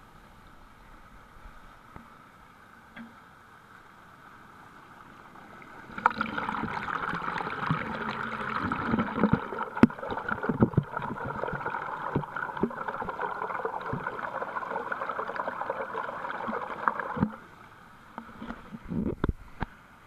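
Water pouring over a small weir and splashing into the pool below. It is a faint steady rush for about six seconds, then much louder and closer with irregular thumps for about eleven seconds, and drops back to faint near the end.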